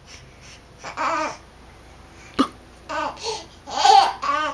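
Baby laughing and babbling in short bursts, the loudest near the end, with one short sharp sound about two and a half seconds in.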